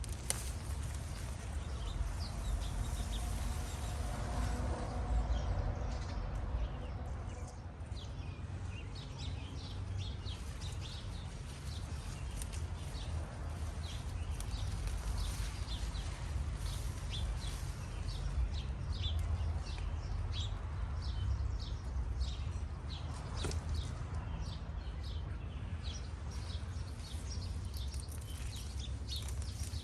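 Small birds chirping in short, irregular calls over a steady low rumble.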